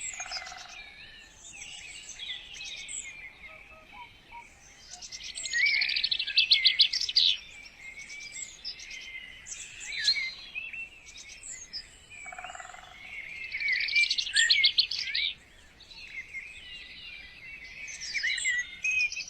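Birdsong: several birds chirping and warbling, with a loud, rapid trilled phrase that comes back three times.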